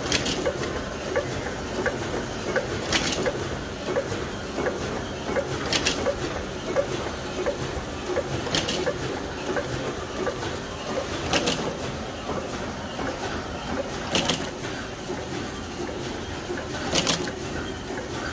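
Shiki 30 MDFU roll-to-roll label printing machine running, with a steady rapid ticking from its mechanism. A sharp hissing clack repeats about every three seconds.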